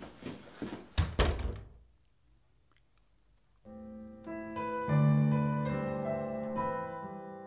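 Footsteps, then a door shutting with a heavy thud about a second in. After a couple of seconds of quiet, slow piano music begins and carries on.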